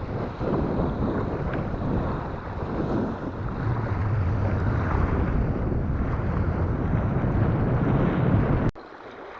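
Waves breaking on the shore, with strong wind buffeting the microphone in a steady rumble. The sound cuts off abruptly near the end.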